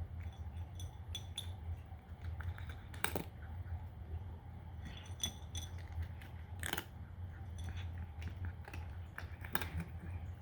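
Cat crunching dry kibble: irregular crisp crunches and clicks, with three louder crunches spaced about three seconds apart, over a steady low hum.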